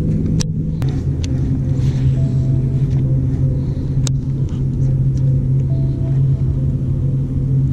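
Boat motor running steadily with a low hum, its pitch dropping slightly about a second in. A few sharp clicks fall about half a second and four seconds in.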